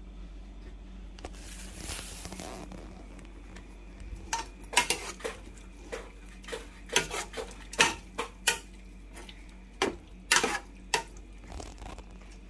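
A metal spoon stirring lentils and pork in a large aluminium stockpot. It clinks and knocks against the pot's sides in irregular strokes from about four seconds in.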